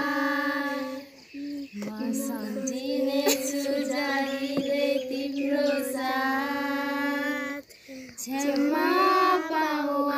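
Girls and young women singing a Nepali song about their mother together, in long held notes, with two short breaks for breath: about a second in and near the end.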